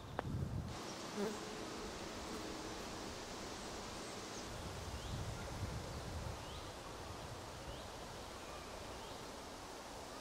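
Summer outdoor ambience with a steady hiss. A fly or bee buzzes briefly near the start, and a small bird gives faint, short chirps about once a second in the second half.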